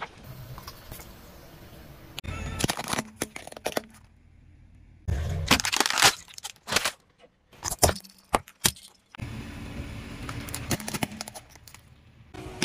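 Plastic objects cracking, snapping and crunching as they are crushed under a car tyre, in several separate bouts. The loudest run of sharp cracks falls in the middle, broken by sudden drops to silence.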